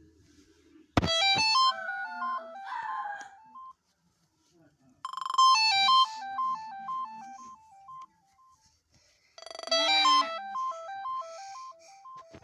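Apex SA237 phone ringtone: a short electronic melody of quick stepped beeps, played three times with a pause of just over a second between each.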